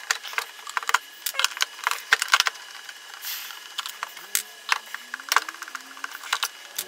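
Irregular clicks and taps of a screwdriver and hands working on the plastic case of a Makita battery charger as it is unscrewed and opened.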